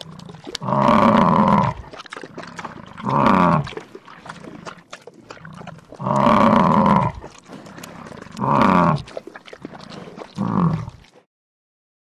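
African buffalo bellowing: five loud calls, longer ones of about a second alternating with shorter ones, some falling in pitch.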